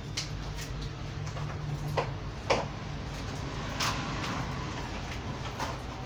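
Scattered scrapes and sharp clicks as soil and roots are worked off the underside of a juniper's root ball, a few strokes a couple of seconds apart, over a steady low hum.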